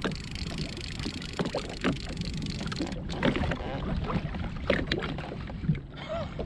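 Small waves slapping and gurgling against a Sea-Doo GTX jet ski's hull, with short splashy knocks now and then over a low steady rumble of wind on the microphone.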